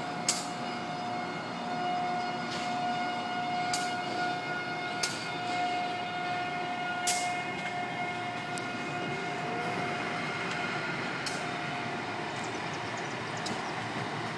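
Amtrak AEM-7 electric locomotive hauling Amfleet passenger coaches as it moves away along the track, with train running noise and a steady whine that fades about ten seconds in. Sharp clicks come at irregular intervals.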